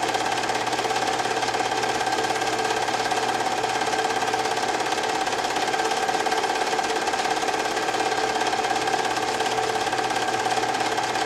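Film projector running steadily: an even, rapid mechanical clatter with a constant hum, unchanging throughout.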